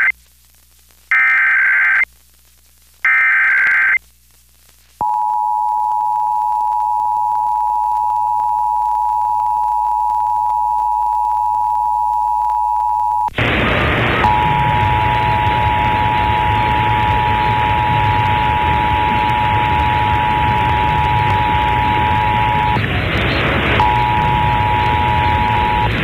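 Emergency Alert System test: the SAME header's data bursts, each about a second long with second-long gaps, then the EAS two-tone attention signal (853 and 960 Hz) held steady. About 13 seconds in, a loud static hiss cuts in. The two-tone signal carries on over it, drops out briefly about 23 seconds in, and resumes near the end.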